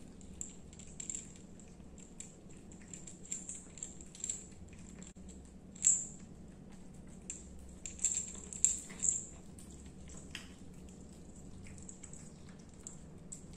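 A cat's small collar bell jingling in short bursts as the cat eats wet food from a plate and moves its head, with soft wet chewing and licking between. The loudest jingles come about six seconds in and again around eight to nine seconds in.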